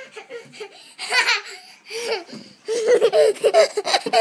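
A young child laughing in quick high-pitched bursts, scattered at first and then loud and continuous for the last second and a half.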